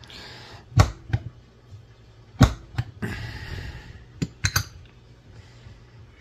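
Hard knocks and clatter from an espresso tamper and a metal portafilter being handled and set down on a tamping mat, with two short stretches of scraping or rubbing between the knocks. The tamper is lifted off the tamped puck and put back in its stand.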